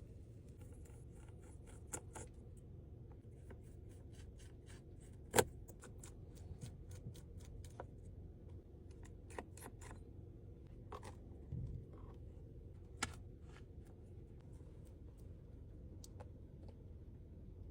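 Small clicks, taps and scrapes of hand tools and parts being handled while an iPad 9 is repaired, over a steady low hum. The sharpest click comes about five seconds in, and a duller knock follows a little before the middle.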